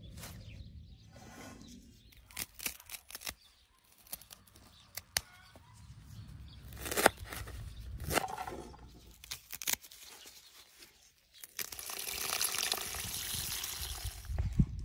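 A knife chopping mallow stems on a wooden cutting board, a string of sharp knocks, followed by the leaves being swished around in a pot of water, a steady splashing through the last few seconds.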